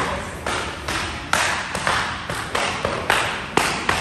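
Jiu-jitsu belts lashed one after another across the back of a man in a gi as he walks a gauntlet of teammates: sharp cracks, about two a second and unevenly spaced, echoing in a large hall.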